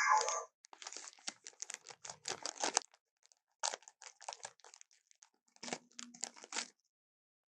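Leopard feeding: it chews and tears at meat, with irregular bursts of crunching and crackling. There are short pauses about three and five seconds in.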